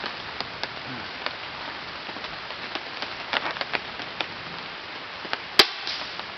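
A single field target air rifle shot about five and a half seconds in, one sharp crack over a steady hiss, with a few faint ticks before it.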